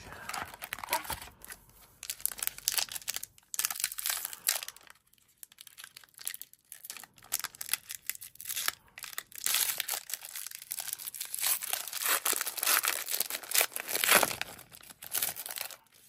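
Trading-card pack wrapper being torn open and crinkled by hand, in irregular bursts with short pauses.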